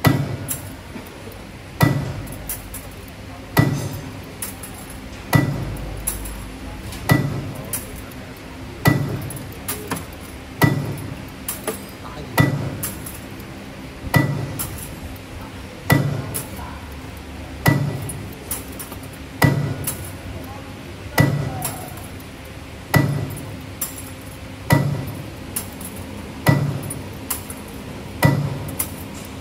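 CNC universal wire bending machine with punching device running its automatic cycle on 1.0x12 mm flat wire: a sharp metallic clack about every second and three quarters, each followed by lighter clicks of the tooling, over a steady machine hum.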